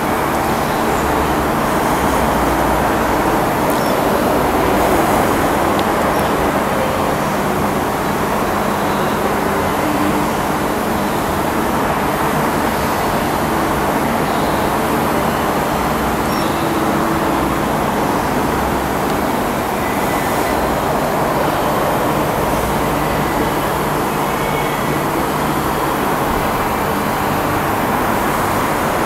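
Proturn 1745P CNC centre lathe running under power: a steady mechanical hum and noise that holds an even level throughout.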